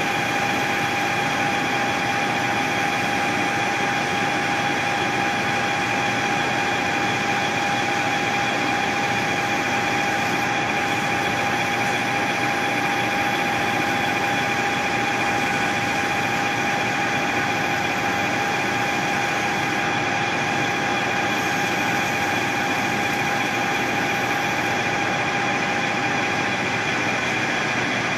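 Machine tool running steadily while machining a shift knob, with a constant high whine over an even mechanical hum.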